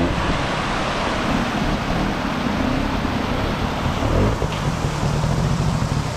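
Trials motorcycle engine running at low revs, its pitch rising and falling as the rider feeds the throttle. It is heard over the steady rush of a swollen stream and wind on the microphone.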